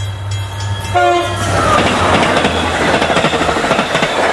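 Passenger train running, heard from inside a carriage: a brief horn note about a second in, then the wheels clattering over the rails and the carriages rattling, louder and steady.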